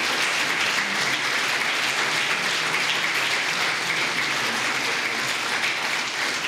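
Audience applauding steadily: many people clapping at once, with no break in the sound.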